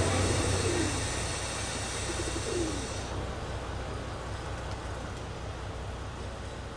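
Railway station platform ambience, fading throughout: a low rumble dies away in the first second, and a pigeon gives a short falling coo about two and a half seconds in.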